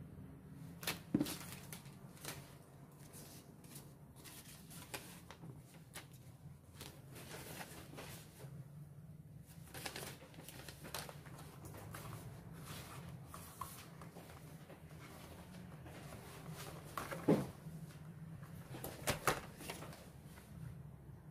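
Unboxing handling: paper and small cardboard boxes rustling and tapping on a table, with a few sharper knocks about a second in and again near the end, over a steady low hum.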